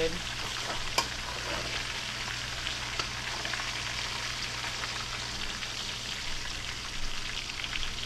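Small bluegill fillets deep-frying in a wok of hot oil: a steady crackling sizzle. A metal slotted spoon stirs them and clinks sharply against the pan twice, about a second and three seconds in.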